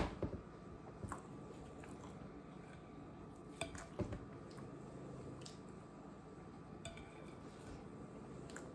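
Soft chewing of a potato croquette, with a few light clicks of a fork on a plate; the sharpest click comes right at the start.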